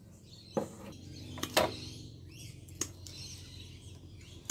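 A few sharp clicks and knocks of parts and tools being handled as a Fronius solar inverter is taken apart, its components pulled free of the sheet-metal chassis. Birds chirp faintly in the background.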